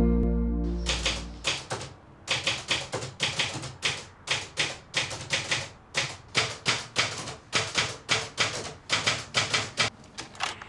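Manual typewriter being typed on: sharp key strikes in short quick runs with brief pauses, stopping shortly before the end. At the start the last of a music chord fades away as the typing begins.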